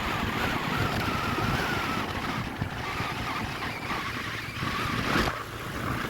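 Motorcycle running along the road, its engine drone mixed with wind rushing over the microphone, with a brief knock about five seconds in.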